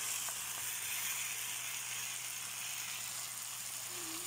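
Blue swimmer crabs frying in oil with onions and aromatics in a wok, making a steady sizzle.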